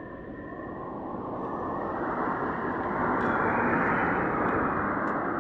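A passing vehicle: a rushing noise that grows louder over about three seconds and then holds.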